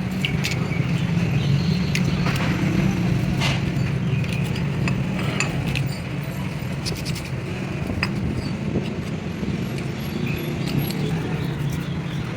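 A steady low motor hum with scattered light metallic clicks and clinks.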